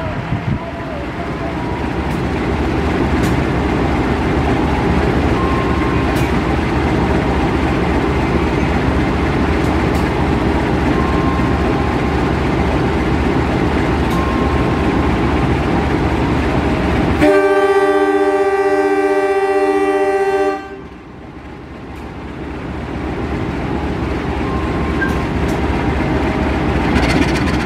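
CC 201 diesel-electric locomotive running at a standstill with a heavy, steady engine rumble. About 17 seconds in it sounds its horn, several pitches at once, for about three seconds. The horn cuts off sharply, and the engine sound then builds up again as the locomotive gets ready to pull out.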